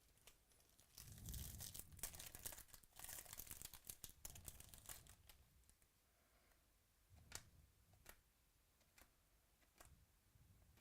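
A trading-card pack wrapper being torn open and crinkled, faint, for about four seconds, followed by a few light clicks.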